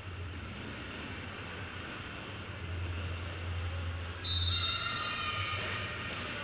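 Quad roller skate wheels rolling on a hall floor: a steady low rumble with high wheel squeals that get louder about four seconds in.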